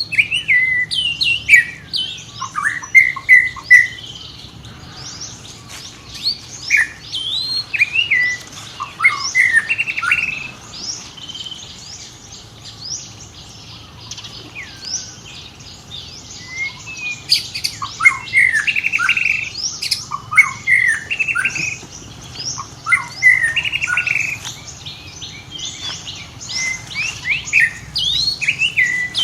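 Many short, high-pitched chirping and squeaking calls in overlapping flurries, with a sparser lull in the middle.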